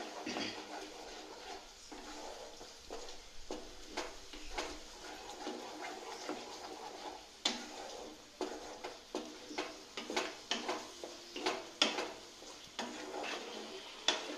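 Wooden spatula stirring and scraping thick masala, with yogurt just added, in a black kadai, with frequent short knocks against the pan that come thicker in the second half. The masala is being fried down with the yogurt.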